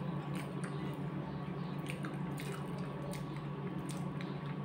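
Fingers mashing and mixing rice with curry on ceramic plates: soft wet squishing with scattered light clicks of fingers on the plate, over a steady low hum.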